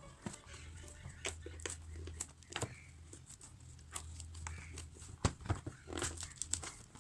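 Album packaging being handled: scattered rustles, taps and clicks of card and plastic, over a low steady hum.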